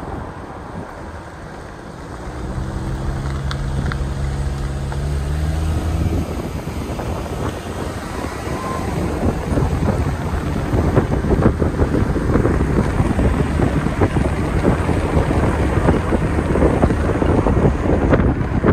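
Wind buffeting a microphone held out of the window of a moving vehicle, over the vehicle's engine and road noise. A steady engine hum stands out for a few seconds early on, then the wind noise grows louder and gustier from about six seconds in.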